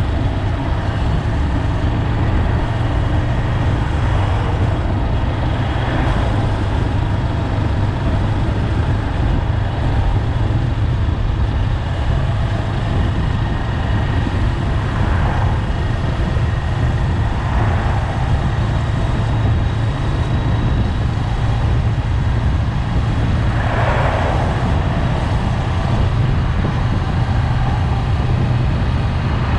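Honda 400X's parallel-twin engine running steadily while riding at road speed, with wind and road noise. A few brief rushes of noise rise over it, the strongest near the end.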